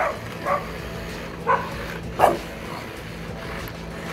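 A dog barking, four short sharp barks in the first two and a half seconds, over a steady low hum.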